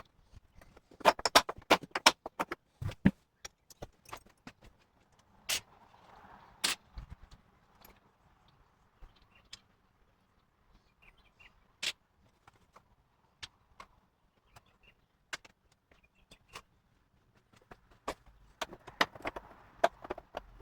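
Small metal parts and tools being handled: scattered sharp clicks and clinks, with busier clattering about a second in and again near the end.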